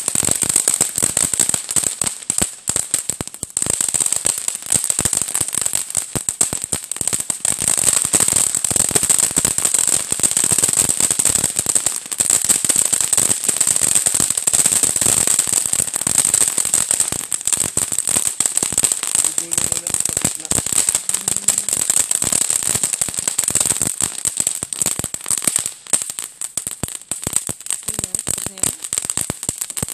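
Ground fountain firework spraying sparks: a high, steady hiss with dense, rapid crackling over it.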